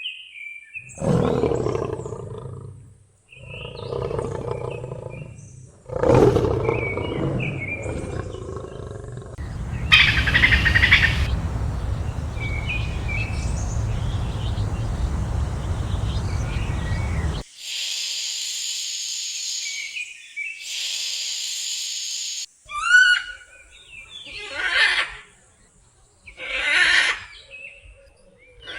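A sequence of wild animal calls: a series of deep, growling big-cat roars, a long noisy stretch, then short high-pitched chirping calls near the end.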